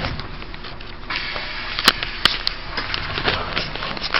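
Inside a Taiwan Railways E1000-series push-pull Tze-Chiang express carriage: a steady rushing cabin noise that grows a little brighter about a second in, with a few sharp clicks and knocks near the middle.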